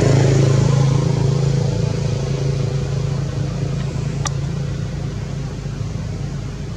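A motor's low, steady hum, loudest at the start and slowly fading away. There is one sharp click about four seconds in.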